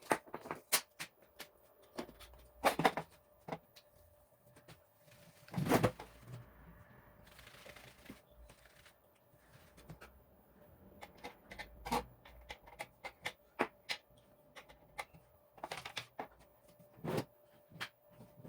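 Irregular clicks, taps and knocks of hands working on a microwave oven's plastic panel and parts during a touch pad replacement, the loudest about 3, 6, 12 and 17 seconds in, over a faint steady hum.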